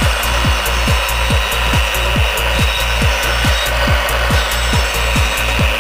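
Wet tile saw running a diamond bullnose (round-edge profile) blade, grinding a rounded edge into a marble tile as the tile is worked along the blade. A steady loud grinding with a regular pulse about three times a second.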